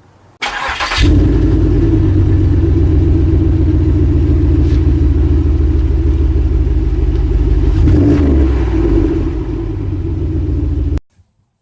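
Pontiac Grand Prix GXP's 5.3 L LS4 V8 with a Flowmaster exhaust starting: a brief crank and catch under a second in, then running steadily with a deep exhaust note and a short change in pitch about eight seconds in, before the sound cuts off abruptly.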